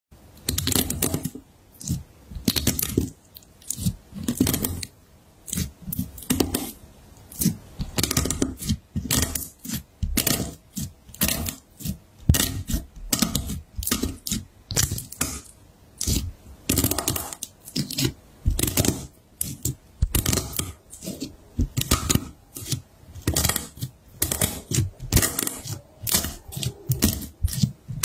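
A thin, brittle coloured layer in a glass baking dish cracking and crunching under pressing fingertips. It comes as short bursts of sharp crackles, about one or two a second, with brief quiet gaps between.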